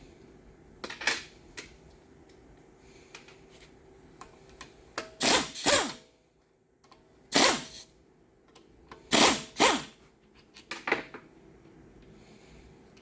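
Impact wrench run in short bursts, about seven in all, some in quick pairs, each spinning up and winding down as bolts come out of a 4L60E automatic transmission.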